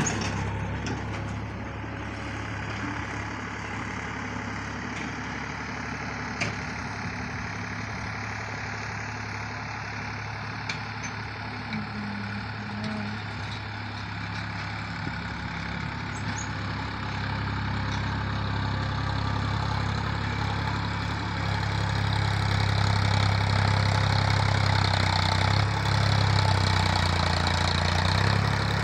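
Massey Ferguson 7250 DI tractor's three-cylinder diesel engine running steadily under load as it drags a land leveller through loose soil. It grows louder in the second half as the tractor comes closer.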